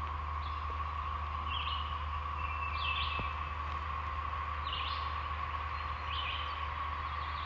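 A bird chirping about five times with short falling calls, over a steady background hum.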